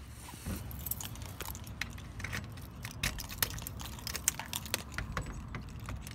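A bunch of keys jangling and clinking in the hand at a door lock: a string of small, irregular metallic clicks.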